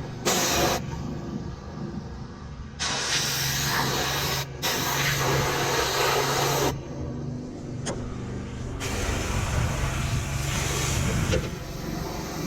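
Pressure washer spray hissing in on-off bursts as the trigger is pulled and released: a short burst, then two long sprays and one more, over a steady low hum.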